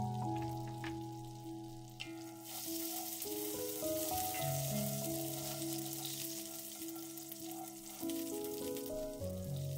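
Butter and olive oil sizzling in a hot cast-iron skillet. The hiss starts up strongly about two seconds in while a wooden spatula spreads the melting fat around the pan. Soft background music plays underneath.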